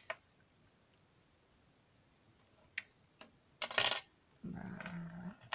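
Small hard objects clicking and clattering on a tabletop: a few light clicks, then a louder clatter a little past halfway. A short hummed murmur of a voice follows near the end.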